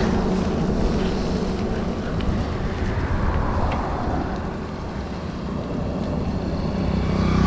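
Steady rumble of road and vehicle noise, with wind on the microphone.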